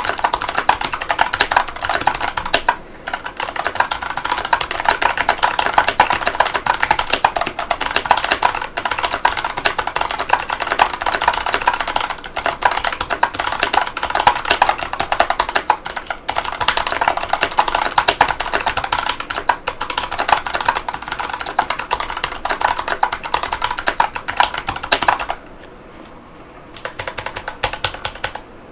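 Fast, continuous typing on a Keychron V6 mechanical keyboard with Kailh Box Pink clicky switches and PBT keycaps, a steady patter of key clicks and the heavier strikes of the stabilized keys. The typing breaks off for a moment about three seconds in, and stops for a second or two near the end before a few more keystrokes.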